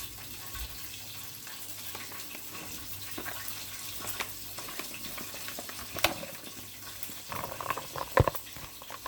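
Chicken frying in hot oil in a skillet, a steady sizzle, with a few utensil clicks and knocks against the pan, the loudest about eight seconds in.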